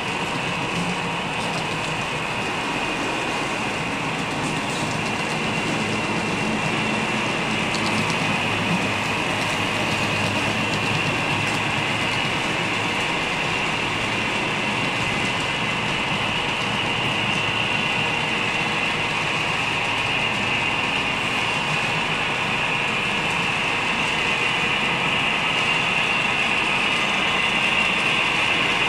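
Model railroad coal train of hopper cars rolling by on the layout track: a steady whirr of small wheels on rail, even and unbroken, growing slightly louder near the end.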